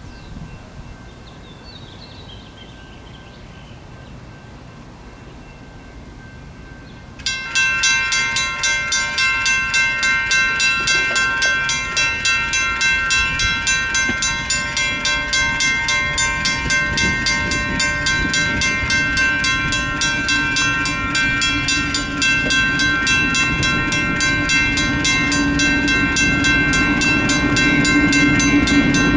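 Railroad crossing signal bell starts suddenly about seven seconds in and keeps ringing in fast, even strokes as the crossing activates for an approaching freight train. A low rumble builds under it near the end.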